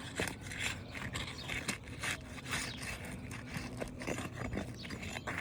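Slender pry bar scraping and working under roof shingles, breaking the seals that bond the courses together so the damaged shingle can be freed; irregular scraping strokes, several a second.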